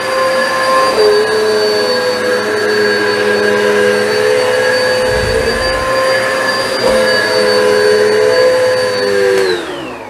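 Philco Up Right 2000 W upright vacuum cleaner running on carpet with a steady high whine, its pitch stepping slightly a couple of times. About nine and a half seconds in, the motor is switched off and the whine falls away as it spins down.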